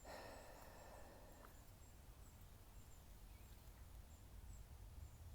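Near silence with faint outdoor background: a brief soft sound with a few held high tones in the first second and a half, faint high chirping repeating throughout, and a low steady hum.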